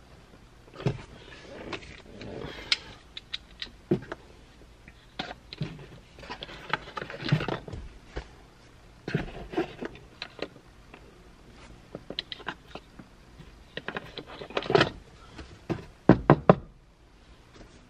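Plastic headliner-mounted sunglass holder being handled, flipped open and snapped shut: a series of plastic clicks and knocks, the loudest snaps a little before the end.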